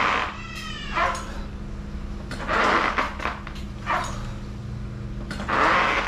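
A person's forceful breaths, puffed out about every three seconds in time with abdominal crunches on a bench, with short high-pitched squeals in between.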